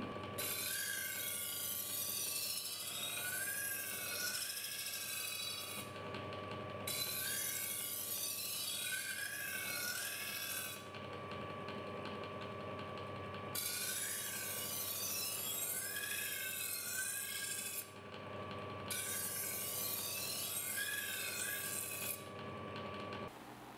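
Knife blade ground against a spinning sandpaper-faced plywood wheel on a homemade lathe to straighten its edge. There are four scraping passes of about four seconds each, with short pauses between, over the steady hum of the lathe motor, which stops near the end.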